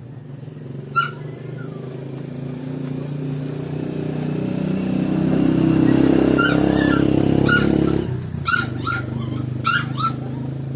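A motor running steadily, growing louder about halfway through and then easing off, with a series of short, high yelps, like a dog's, in the second half.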